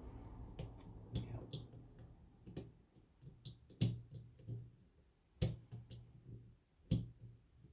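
Lock pick and tension wrench working the pin stack of a six-pin ZONE closed-shackle padlock: scattered sharp metallic clicks, irregular. The loudest come about four, five and a half and seven seconds in.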